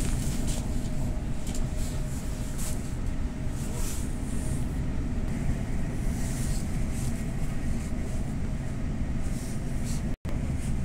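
Passenger train running along the line, heard from inside the carriage: a steady low rumble of wheels on rail with a faint steady whine above it. The sound cuts out for an instant near the end.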